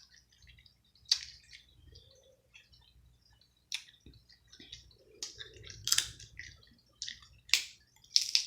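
Cooked crab or lobster shell cracking and snapping as it is broken open by hand to get at the meat. About five sharp cracks come a second or two apart, with softer crunching and squishing between them.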